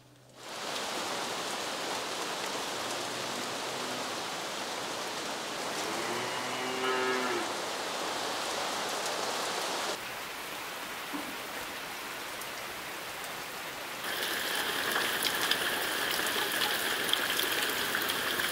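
Steady rain falling on leaves and wet ground. About six seconds in a cow moos once, lasting over a second. From about fourteen seconds a steady high-pitched ringing joins the rain.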